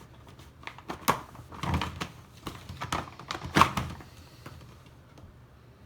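Giant plastic Rubik's cube being turned by hand, its big layers clacking and scraping as they rotate, with several separate knocks, the loudest about three and a half seconds in.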